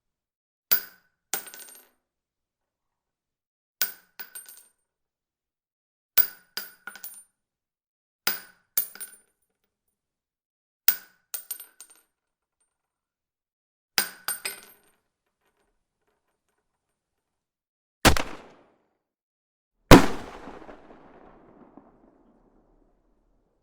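Gun sound effects: sharp metallic clinks with a brief ringing tone, in little groups of two to four every couple of seconds, like gun mechanism clicks or brass shell casings landing. Near the end come two gunshots about two seconds apart, the second with a long fading tail.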